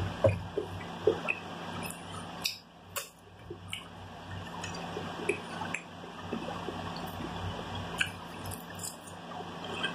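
Close-up chewing of Doritos crumbs: irregular small mouth clicks and crunches over a steady low hum.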